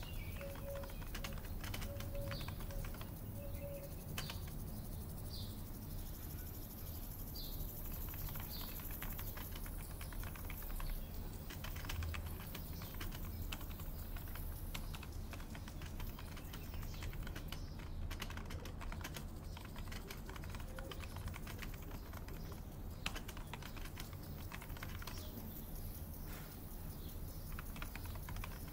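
Computer keyboard typing: a steady, irregular patter of keystrokes over a low background hum, with a bird chirping a few times in the first third.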